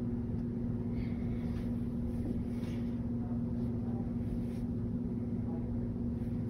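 Steady low machine hum with one strong, unchanging tone and a rumble beneath it, holding level throughout.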